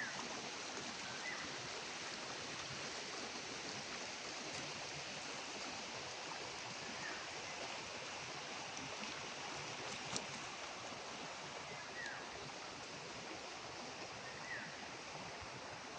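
Steady rushing of flowing stream water, with a few faint short chirps over it.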